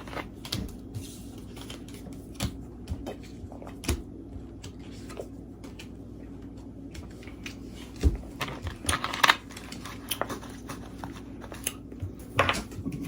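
Playing cards being handled and laid down on a table during a Skip-Bo turn: scattered light taps and clicks, with a few sharper ones about eight and nine seconds in, over a low steady room hum.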